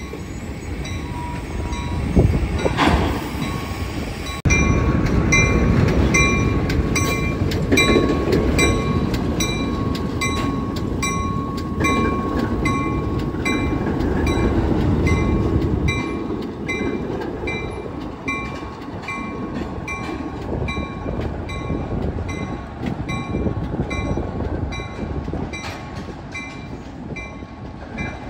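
ALCO RS-1 switcher's turbocharged six-cylinder 539 diesel running as the locomotive and its hopper cars roll past close by, with wheels clicking over the rail joints. It is loudest from about four seconds in until about sixteen seconds in. A high ringing note repeats about twice a second.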